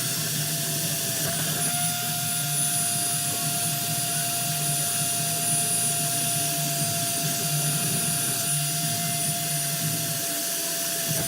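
Ducted exhaust fan running steadily: a constant rush of moving air with a steady whine over it.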